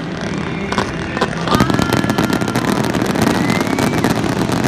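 Aerial fireworks going off: a few sharp bangs in the first second, then dense rapid crackling from about a second and a half in. A steady low hum runs underneath.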